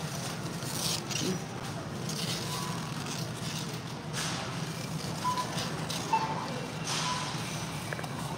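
Self-checkout ambience: a few short single barcode-scanner beeps and brief rustles of plastic bags over a steady store hum.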